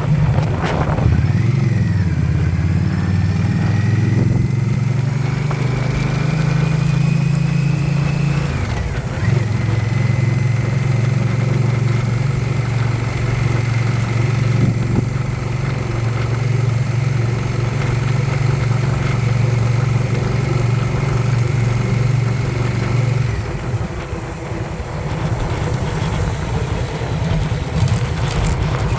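Motorcycle engine running, with a thin high whine over it. The whine rises slowly in pitch, breaks off about eight seconds in, then holds steady. Both the engine note and the whine drop away about 23 seconds in.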